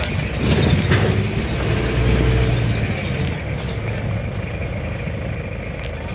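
Response vehicle's engine running steadily, louder from about half a second to two and a half seconds in, then settling.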